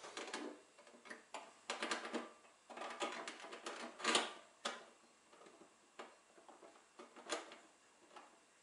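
Quick clicks and rattles of small faucet fittings being handled at the tap hole of a stainless steel kitchen sink, then a few scattered single knocks.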